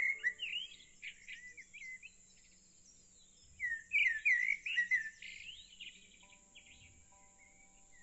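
Songbirds chirping and warbling in quick sliding calls, in two bursts near the start and around four to five seconds in, with soft background music of held notes coming in near the end.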